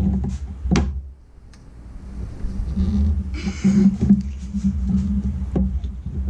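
Hands working in a Jeep engine bay: a few sharp clicks and knocks and a short scraping rustle as hoses and parts are handled, over a steady low hum.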